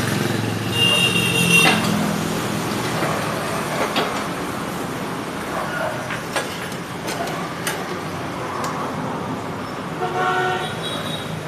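Slow-speed metal-cutting saw with a carbide-tipped blade running and cutting stainless steel. A brief high-pitched ringing tone sounds about a second in and again near the end, with a few sharp clicks in between.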